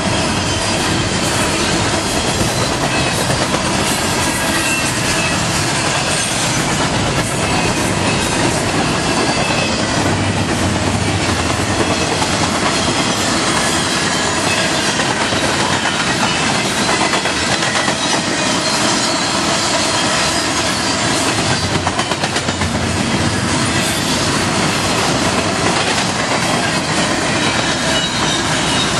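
Freight cars of an intermodal train rolling past at speed: a steady loud rush of steel wheels on rail with clickety-clack, and thin high wheel squeal over it.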